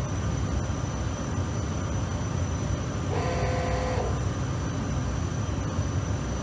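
Steady low machinery hum with a thin high whine, with a pitched beep-like tone lasting about a second, three seconds in.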